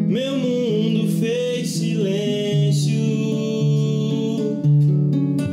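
Acoustic guitar fingerpicked in a slow, intimate song, low notes ringing under a melody. For the first couple of seconds a high, wavering note slides in over the guitar.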